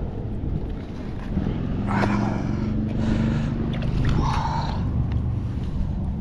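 A motor engine runs steadily from about a second in. Two short, sharper noises come on top of it near two and four seconds.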